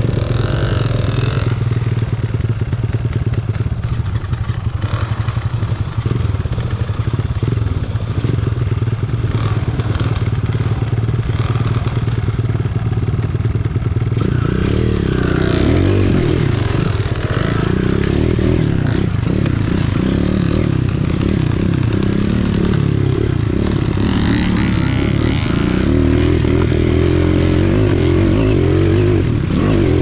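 Enduro dirt bike engine running under way on a trail, its note steady at first, then louder and rising and falling with the throttle from about halfway through.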